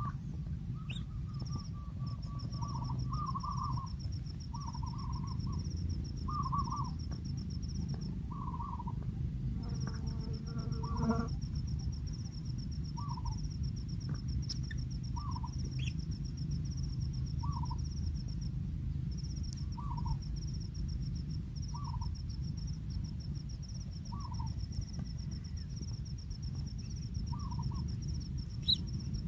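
A bird calling a short, single note over and over, about once every two seconds, while an insect trills steadily at a high pitch, dropping out for a moment now and then, over a low constant background rumble.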